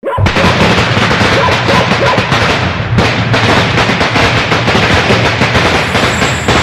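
A long string of Chinese firecrackers going off: a loud, dense, rapid crackle of bangs that starts suddenly and runs on without a break.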